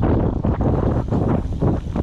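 Heavy wind buffeting the microphone of a mountain biker's camera while riding, with irregular knocks and rattles from the bike rolling over the dirt trail.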